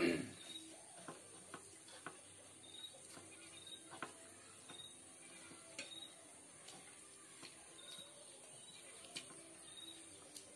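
Fingers mixing and scooping rice and boiled chicken in a metal plate: soft wet squishing with scattered light clicks. Underneath, a faint high chirp repeats about once a second over a steady high hiss. A short, louder sound comes right at the start.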